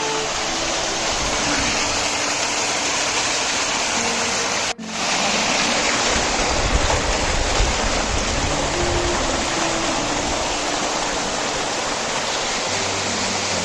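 Small seasonal waterfall, swollen by overnight rain, with a steady, dense rush of falling water. The sound drops out for an instant about five seconds in.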